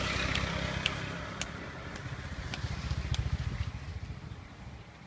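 A small vehicle engine running close by, its low rumble swelling at the start and again about three seconds in, with a few sharp clicks over it.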